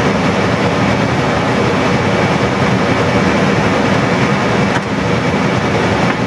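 Airliner flight-deck noise on approach: a steady rushing of airflow and engines through the cockpit. There is a faint click about five seconds in.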